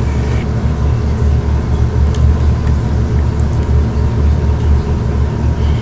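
Steady low background hum, with a few faint light ticks from hands working vinyl on a motorcycle helmet.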